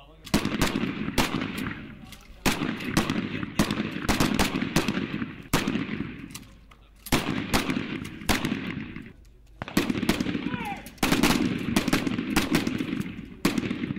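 Several pump-action shotguns firing fast from a firing line, the shots overlapping in dense strings broken by brief pauses.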